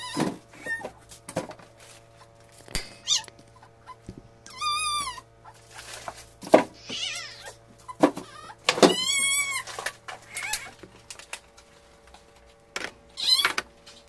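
Knocks and clatter of jars and containers being moved about inside an open refrigerator, with an animal calling several times, each call a short rise and fall in pitch. A low steady hum cuts out about eleven seconds in.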